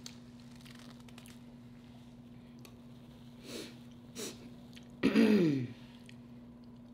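A short, loud vocal sound from a person about five seconds in, falling in pitch, over a faint steady hum. Before it come soft rustles of a paper napkin as hands are wiped.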